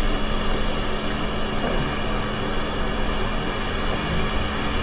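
Quick 861DW hot air rework station blowing a steady hiss of hot air with a low constant hum, reflowing the solder as a replacement HDMI port is pressed onto the board.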